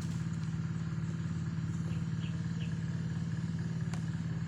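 A small engine idling steadily with a rapid even pulse, and a light click about four seconds in.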